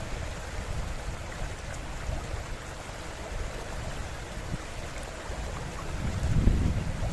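River water running steadily, with low rumbles of wind on the microphone that swell near the end.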